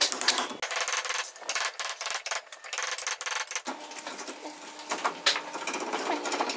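Wood chisel pushed by hand, paring out the mortise in a wooden plane body, with irregular scraping and crunching clicks as the fibres are cut.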